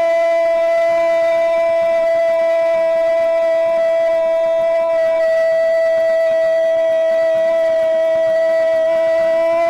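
A football radio commentator's drawn-out goal call: one shouted 'gol' held as a single loud, unbroken vowel at a steady pitch.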